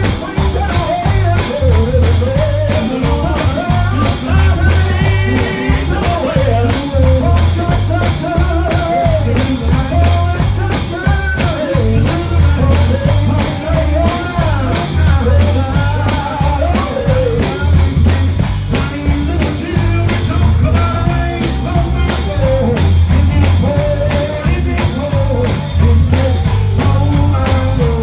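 Live gospel music: a singer over a band, with a steady drum beat of about two strokes a second and a strong bass line.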